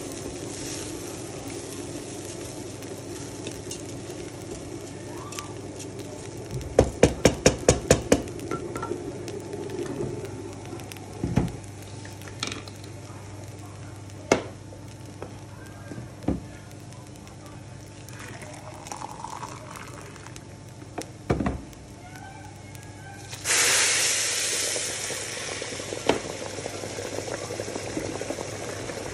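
Rice and carrots frying and being stirred in a non-stick pan, with a utensil knocking against the pan in a quick run of about eight clicks and a few single knocks. Past the middle, liquid goes into the hot pan with a sudden loud hiss that settles down into simmering.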